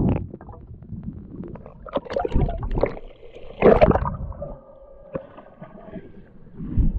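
Water sloshing and gurgling around a camera held just under the lake surface, in uneven bursts with a few sharp knocks.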